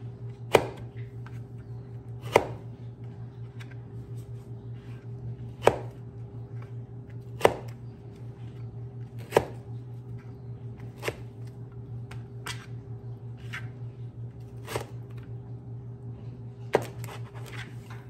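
Pampered Chef hand-plunger food chopper pressed down again and again on strawberries on a plastic cutting board: a sharp clack about every two seconds, with lighter clicks between.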